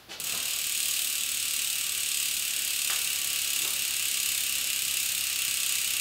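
Newly installed freewheel on a bicycle's rear wheel ratcheting as the hand-spun wheel coasts, its pawls clicking so fast that they blend into an even buzz. It starts suddenly just after the spin and holds steady.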